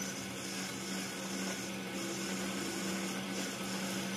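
Metal lathe running with a steady hum while its cutting tool turns down a spinning steel workpiece.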